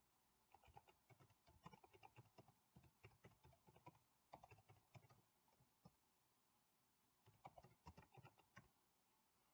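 Faint typing on a computer keyboard: quick runs of keystroke clicks, a pause of about a second, then another short run near the end.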